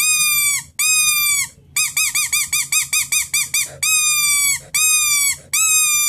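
Primos Squirrel Buster squirrel call blown by mouth on its distress setting, imitating a squirrel in distress. It gives high, pitched squeals: three long ones of about two-thirds of a second each, then a quick run of about a dozen short squeals, then three more long ones, each dropping slightly in pitch at its end.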